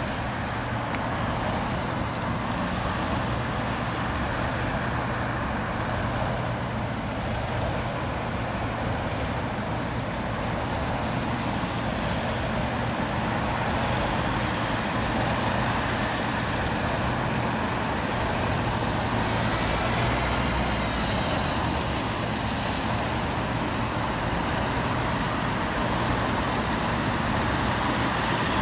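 Class 37 diesel locomotive's English Electric V12 engine running at a steady low note, with a steady wash of road traffic noise.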